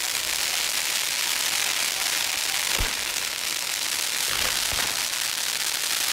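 Correfoc fireworks (carretilles on fire forks and ground fountains) spraying sparks with a steady high fizzing hiss, broken by two sharp bangs, about three seconds in and again near five seconds.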